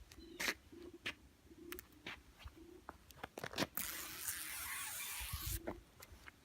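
Light clicks and taps of plastic trim parts being handled, then about two seconds of a steady tearing noise near the middle, as the protective liner is peeled off 3M adhesive tape.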